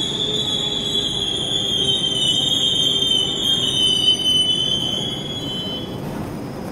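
DB Intercity 2 double-deck train rolling slowly along the platform, its wheels or brakes giving a steady high squeal over a low rumble. The squeal dies away about five and a half seconds in, leaving the rumble.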